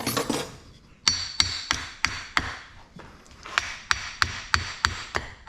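Hammer blows on the metal of a transformer being taken apart for its copper: evenly spaced strikes about three a second with a bright metallic ring, in two runs with a short pause about halfway.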